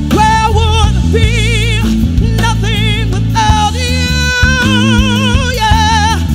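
A woman's solo voice singing a gospel worship song, holding long notes with wide vibrato in several phrases, over steady instrumental accompaniment.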